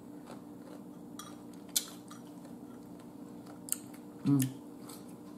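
A few sharp clicks and taps of crab shell and a dipping bowl being handled during a crab boil meal, with a short low hum of the eater's voice about four seconds in, over a steady low hum in the room.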